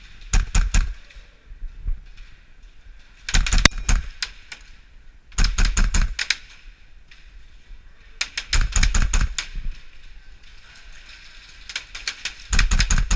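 Airsoft gun firing five short bursts of rapid shots, each a quick clatter of clicks, spaced a few seconds apart.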